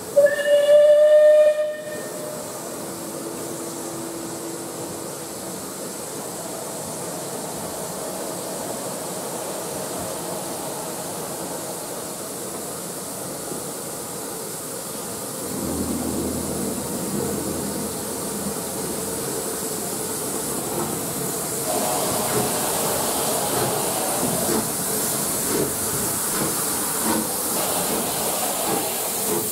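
A steam locomotive whistle gives one loud blast of about a second and a half at the start, followed by a steady hiss of steam. From about halfway, a Southern Railway Bulleid pacific draws slowly closer, its hissing and rumbling growing louder.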